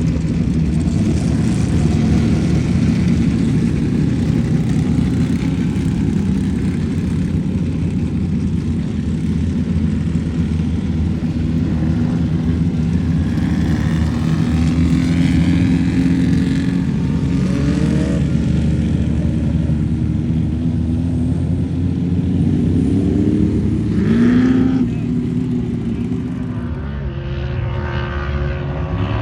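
Off-road race vehicle engines running steadily, the engine note rising a little past halfway and again shortly before the end.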